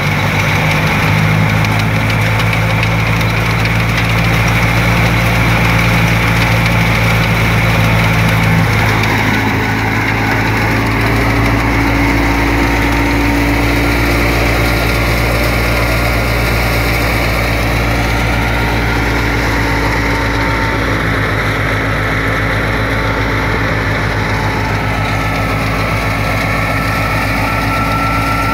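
Tractor-driven wheat thresher running steadily: the Ghazi 65 hp tractor's diesel engine turning the thresher, with a steady low hum under the noise of the threshing drum and fan.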